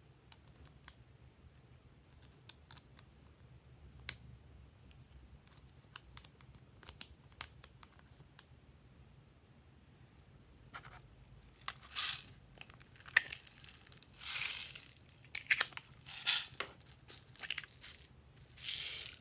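Light scattered clicks and taps of small plastic items being handled. About twelve seconds in, a run of loud crinkling, tearing rasps starts, with five or six bursts: plastic packaging being handled and torn.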